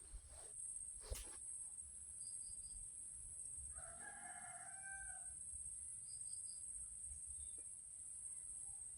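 A rooster crowing once, faint and held for about a second and a half, near the middle.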